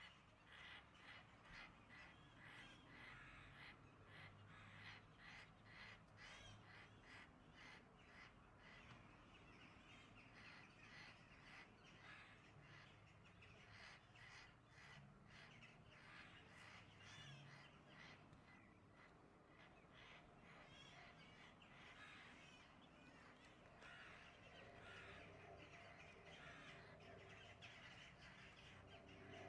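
Crow cawing faintly and repeatedly: a fast, even run of harsh caws, about two to three a second, for roughly the first half, then more irregular calls.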